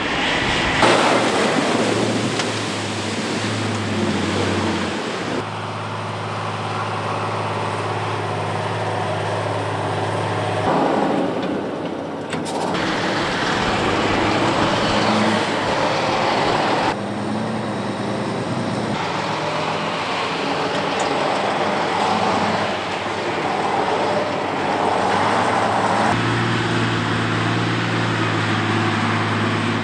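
Tatrapan 6x6 armoured vehicle's diesel engine running as it drives off-road, in several clips that cut abruptly from one to the next, some with a steady low engine hum.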